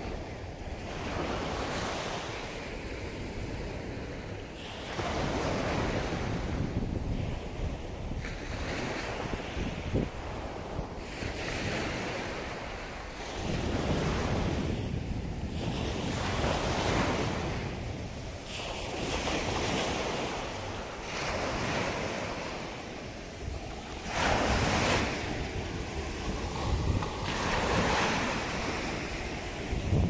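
Ocean surf: waves breaking and washing up the beach one after another, swelling and easing every few seconds, with wind rumbling on the microphone.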